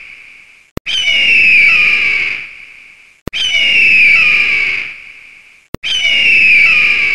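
A harsh, slightly falling screech, like a bird of prey's scream, repeated three times about every two and a half seconds as an identical looped sound effect, each repeat opened by a sharp click.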